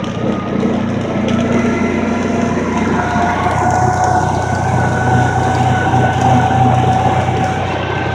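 Side-by-side ATV engine running under way, with a steady hum and road and wind noise; its pitch rises about three seconds in and then holds steady.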